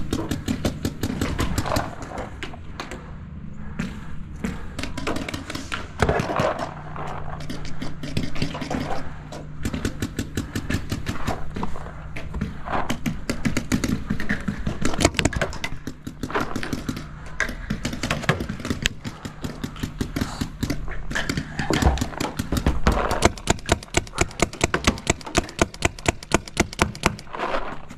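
Paintball markers firing: scattered pops throughout, then a fast, even string of shots over the last few seconds, about five a second.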